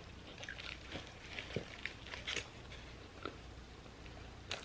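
A person chewing a mouthful of Taco Bell quesarito close to the microphone, quietly, with scattered small wet mouth clicks and smacks and a sharper click near the end.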